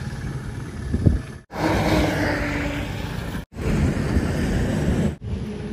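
Motor vehicle engine noise on a road, a steady rumbling drone that cuts out abruptly three times and resumes.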